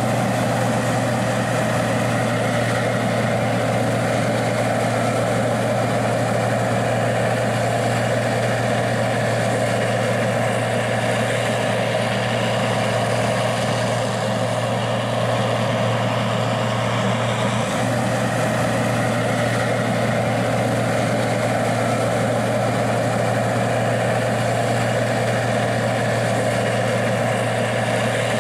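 Gleaner R60 combine's diesel engine running steadily at an even speed, a constant low hum with no revving.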